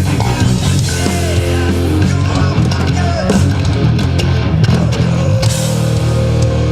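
Heavy metal band playing: distorted electric guitars and bass hold low chords under drums and cymbals, while a lead guitar bends notes twice.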